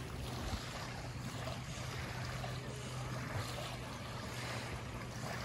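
Small sea waves lapping gently on a pebble shore, with a steady low hum underneath and some wind on the microphone.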